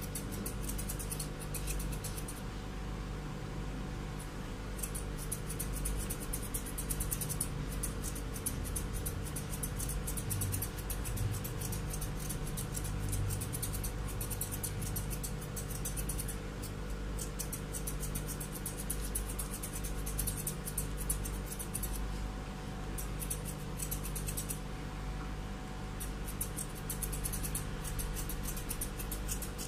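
Thinning scissors snipping through a Pomeranian's fur, a fast run of small metallic clicks broken by a few short pauses, over a steady low hum.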